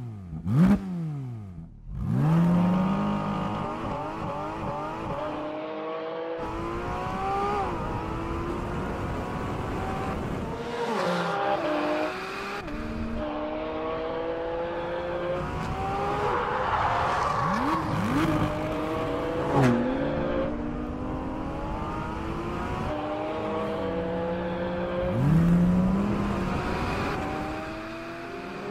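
Porsche 718 Cayman GT4 RS's naturally aspirated 4.0-litre flat-six under hard acceleration. The revs climb for several seconds at a time and fall away sharply at each gear change, with a few quick rev blips on downshifts.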